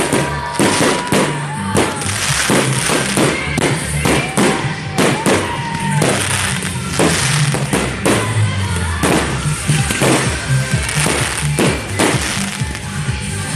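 Aerial fireworks shells bursting overhead, a rapid irregular series of bangs and crackles, with music playing over them.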